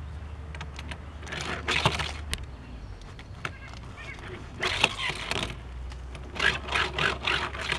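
Die-cast Matchbox Hardnoze toy fire truck pushed by hand along an orange plastic track, its wheels giving a plain rolling noise in three short runs, about 1.5, 5 and 7 seconds in.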